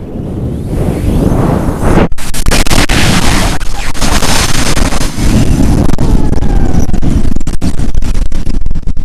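Very hard wind buffeting the microphone: a loud, rough, gusty rushing noise, briefly cutting out about two seconds in.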